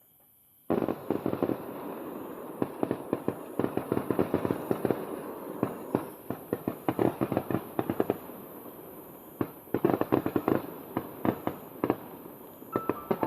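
Fireworks finale: a sudden start about a second in, then a dense, continuous barrage of rapid pops and crackles.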